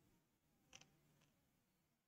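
Near silence: faint room tone with a low hum, a brief double click about three quarters of a second in and a fainter click soon after.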